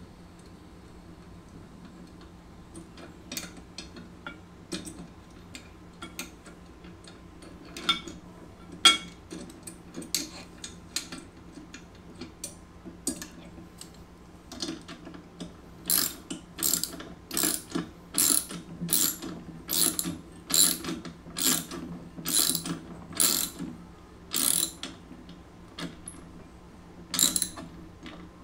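Socket ratchet wrench clicking as it tightens the handle bolt: scattered clicks at first, then a steady run of about two clicks a second from a little past halfway, and a few more near the end.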